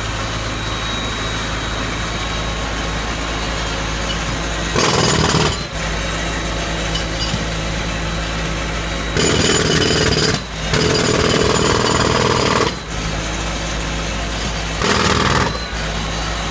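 Pneumatic jackhammer breaking up a concrete walkway in bursts: a short one about five seconds in, two longer runs of about one and two seconds around the middle, and a short one near the end. Between bursts an air compressor's engine drones steadily.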